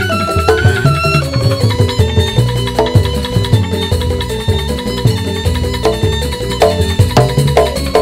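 Balinese joged bumbung gamelan music: a bamboo ensemble playing quick runs of pitched notes over drums.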